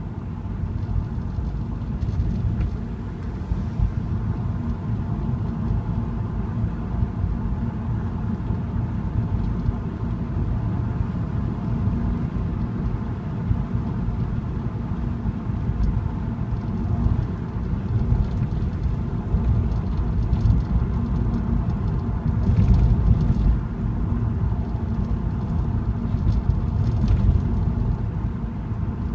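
A car driving at a steady pace: a continuous low rumble of engine and tyres on the road.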